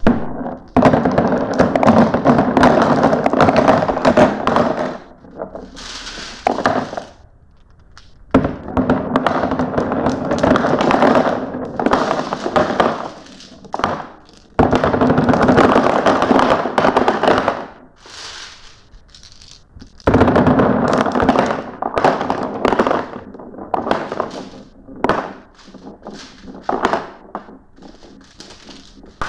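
Many glass marbles rolling and clattering down a marble-run track. The sound comes in loud rushes of several seconds each, a dense run of clicks over a rolling rumble, with quieter gaps of scattered single clicks between them.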